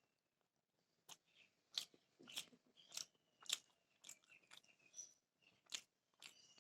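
A person chewing a mouthful of beef biryani, with quiet wet mouth clicks and smacks about twice a second, starting about a second in.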